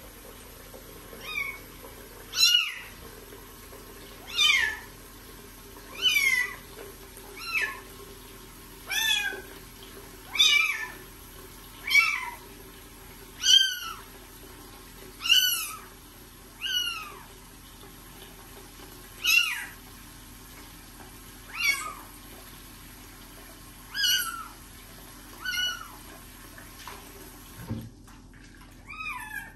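Very young kitten meowing over and over while it is being bathed: high, short cries that fall in pitch, about one every one to two seconds.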